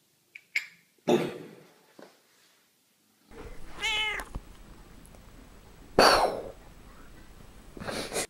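Domestic cat meowing: one clear meow that rises and falls about four seconds in, among a few shorter, harsher bursts of sound, the loudest about six seconds in.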